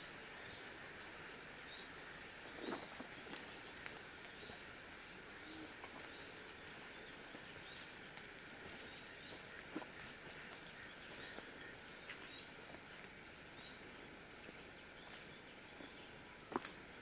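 Faint bush ambience: a steady chirring of insects with small bird chirps, broken by a few scattered clicks and a sharper double click near the end.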